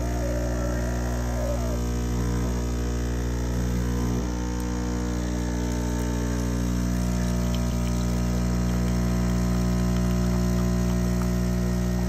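De'Longhi Stilosa espresso machine's 15-bar vibratory pump running with a steady hum while espresso pours into the cup.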